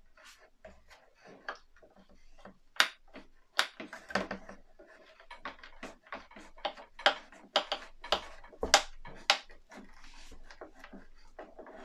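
Irregular small clicks and taps of a screwdriver driving a small screw into plastic model parts, growing louder and more frequent about three seconds in.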